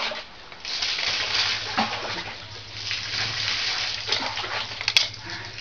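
Hot water sloshing and splashing in a metal pot as a scalded dead chicken is turned in it with a utensil, scalding to loosen the feathers before plucking. A single sharp click comes about five seconds in.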